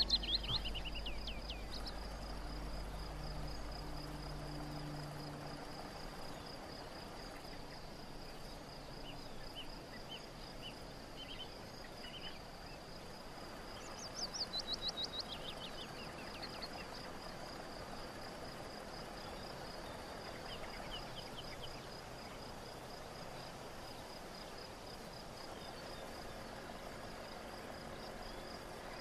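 Crickets chirring in a steady, high, pulsing drone over quiet open-country ambience. A bird's descending trill sounds at the very start and again about halfway through, with a few short bird chirps between them.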